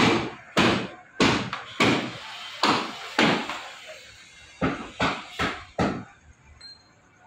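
A series of about ten loud, sharp bangs, each fading quickly: six come roughly half a second apart, then after a short pause four more follow in quicker succession.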